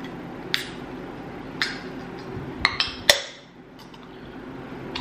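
Drink cans being handled and set down on a table: a few hard knocks and clinks, then a sharper crack with a brief hiss about three seconds in. A steady low hum runs underneath.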